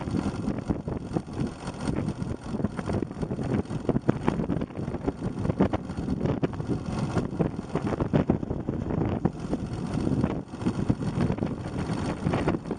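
Yamaha XT250 motorcycle on the move, its single-cylinder four-stroke engine running steadily, with wind buffeting the microphone in uneven gusts.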